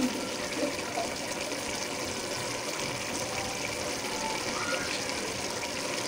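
Pot of rice and chickpeas boiling, a steady bubbling as the cooking water starts to cook down into the rice.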